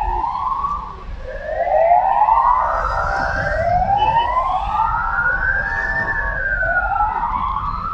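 Wailing vehicle siren on National Guard vehicles, its pitch sweeping slowly up and down in repeated overlapping cycles of a few seconds each, over the low rumble of city traffic.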